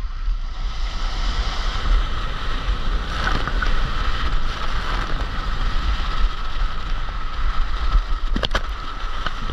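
Steady rush of water and wind buffeting the microphone as a rider slides down a water slide, with a couple of sharp knocks near the end.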